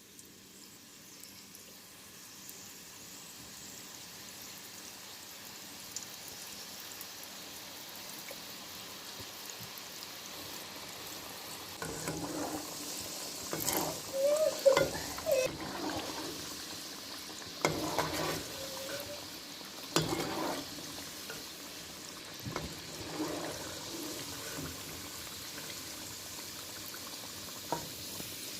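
Liquid in a cooking pot with a steady hiss that slowly grows louder, then from about halfway in, irregular liquid sounds of pouring and stirring with a few short squeaky scrapes.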